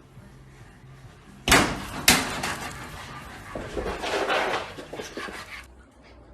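Two sharp thuds about half a second apart, followed by a few seconds of scuffling and rustling that stops near the end.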